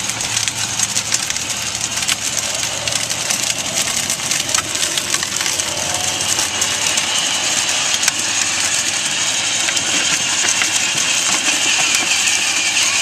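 A slow-rolling car, its tyres crunching and crackling over gravel, with a faint engine hum in the first few seconds.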